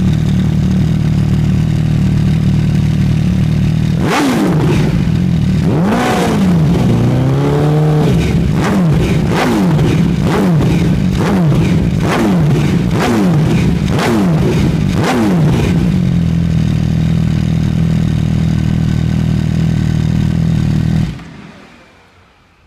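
MV Agusta F4 1078's four-cylinder engine idling through an Arrow carbon slip-on exhaust. About four seconds in it is revved, once held higher, then blipped quickly about once a second for several seconds, before settling back to idle and shutting off near the end.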